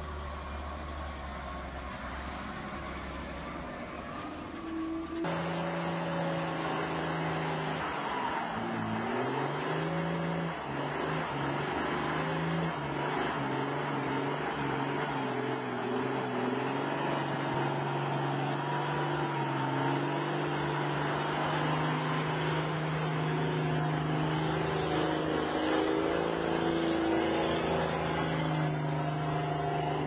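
A loaded log truck's diesel engine running low and steady. After a cut about five seconds in, an old truck's diesel engine works hard under load, its pitch rising and falling for a few seconds, then holding and growing slightly louder.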